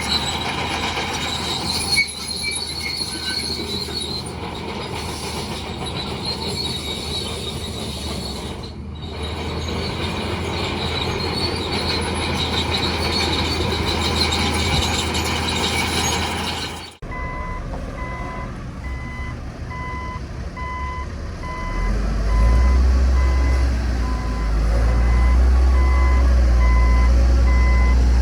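Bulldozer running, its steel tracks squealing and grinding. After a sudden cut about 17 seconds in, a reversing alarm beeps steadily as a dump truck backs up, its diesel engine getting louder about 22 seconds in.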